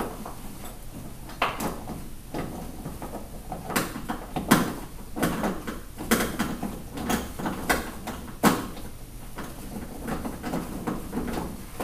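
Allen wrench tightening the screw that joins the two pieces of a truck bed U-lock: a run of irregular metallic clicks and scrapes as the key is turned and reset.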